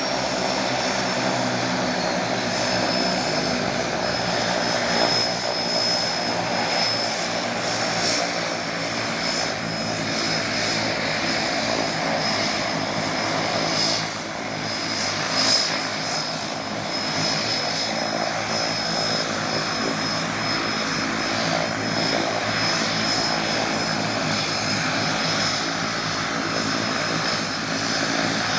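A de Havilland Canada DHC-6 Twin Otter floatplane's twin turboprop engines idling on the water: a steady propeller drone with a steady high turbine whine over it.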